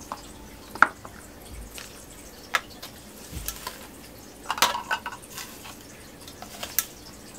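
A few light clicks and scrapes of a plastic scoop working through a dry mix of herbs and salt in a stainless steel bowl, with small taps as the mix is tipped into a small glass container.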